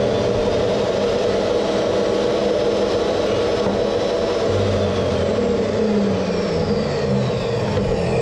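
DeWalt jobsite table saw running steadily at speed while notches are cut in a strip of plastic window stock. A falling whine shows in the upper tones in the last couple of seconds.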